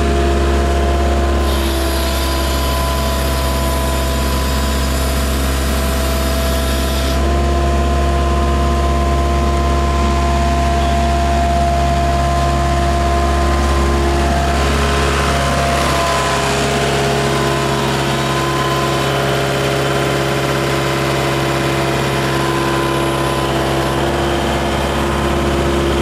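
Case backhoe's diesel engine running steadily, its note shifting a few times as the machine is worked.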